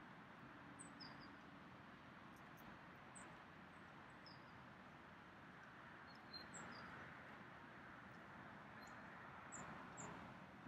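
Quiet outdoor ambience: a faint steady hiss with short, high bird chirps scattered through it, a dozen or so.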